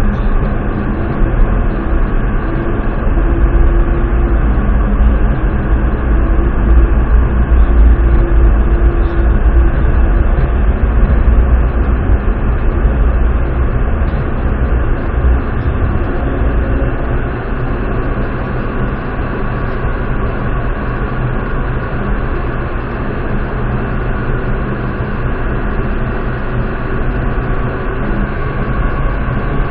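Driverless Barcelona Metro train running through a tunnel, heard from inside the car: a continuous rumble of the train on the rails with a few steady whining tones over it, easing slightly in loudness about halfway through.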